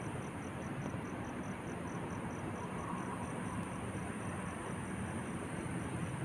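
Steady distant city traffic hum and rumble at night, with a faint high-pitched pulsing about four times a second that fades out midway.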